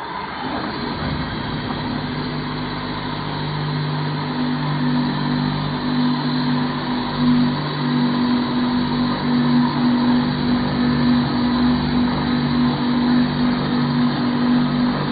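Knife sharpening machine running: a steady low motor hum with a noisy whir over it, getting louder over the first few seconds and then holding steady.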